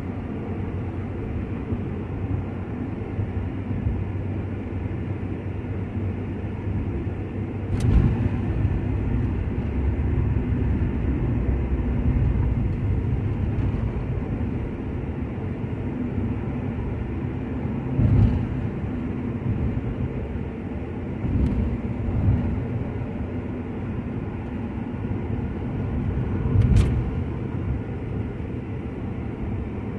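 Steady low road and engine rumble of a car driving at highway speed, heard from inside the cabin. Three sharp knocks stand out, about 8, 18 and 27 seconds in.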